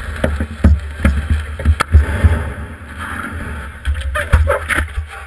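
Low rumble of wind and handling on an action camera mounted on a surfboard, broken by a string of knocks and clunks as the board is tipped over and laid down.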